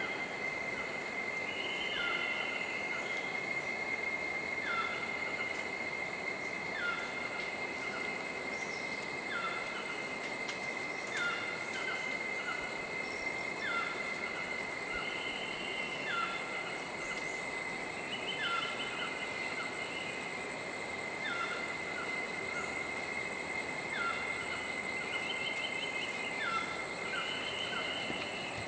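Rainforest ambience: a steady high-pitched insect drone over a constant rushing hiss, while a bird repeats a short falling call about every two seconds, with brief higher trills in between. The howler monkeys are not howling.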